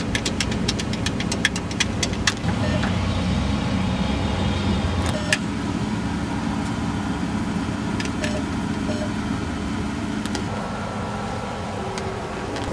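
ATM keypad buttons pressed in a quick run of clicks, about five a second, for the first two seconds, with a few single presses later. A steady low mechanical rumble runs underneath.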